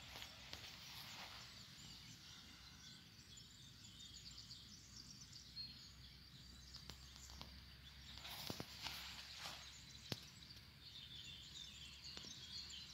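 Near silence: faint outdoor ambience with distant bird calls and a few soft clicks about two-thirds of the way through.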